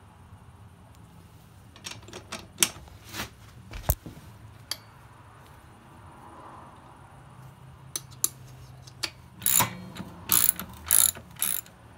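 Socket ratchet wrench clicking as it works the rear axle nut: a few scattered clicks a couple of seconds in, then a denser, louder run of ratcheting near the end.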